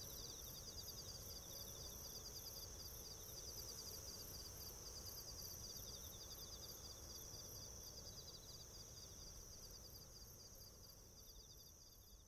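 Faint ambience of insects trilling: a steady high trill with rapid, evenly pulsed chirps beneath it, over a low rumble, fading out near the end.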